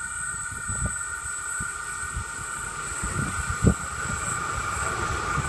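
Diesel locomotive approaching from a distance with a Waratah train set in tow, a low rumble building slowly as it nears. Several short low thumps stand out above it.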